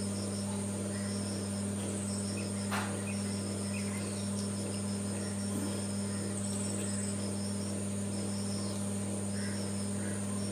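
Insects trill steadily in a continuous high-pitched drone, with short repeated chirps on top and a steady low hum underneath. A single sharp click comes a little under three seconds in.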